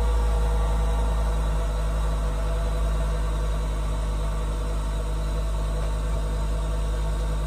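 Volvo C30's engine idling steadily, a low even hum.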